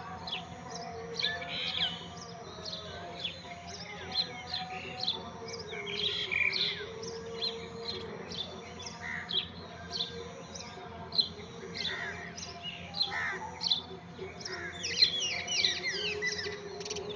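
Sparrows chirping continuously: many short, quick chirps overlapping, as from several birds together, with a denser cluster near the end.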